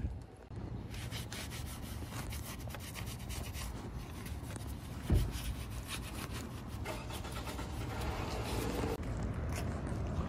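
Irregular scraping and rubbing from hand work at the front of the engine, by the crank pulley, with one low knock about five seconds in.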